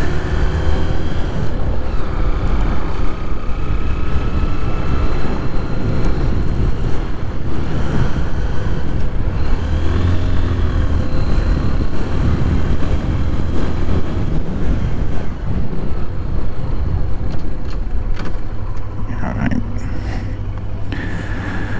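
Motorcycle engine running under way, with wind rumbling on a helmet-mounted camera. Near the end the sound becomes quieter and steadier as the bike slows under braking.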